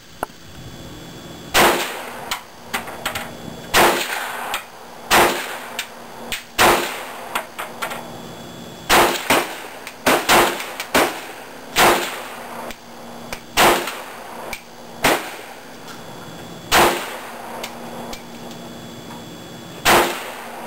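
Gun fired about a dozen single shots at an uneven pace, one to two seconds apart, each a sharp crack with a short echo, with fainter pops and clicks in between.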